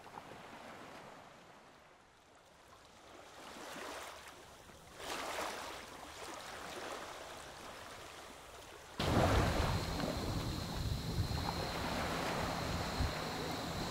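Faint, low noise at first; then, about nine seconds in, wind buffeting the microphone starts suddenly, with waves washing and a faint steady high-pitched tone above it.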